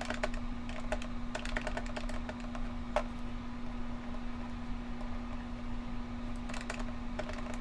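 Keys tapped in short quick runs with pauses between, as figures are keyed in to total and subtract columns, over a steady low hum.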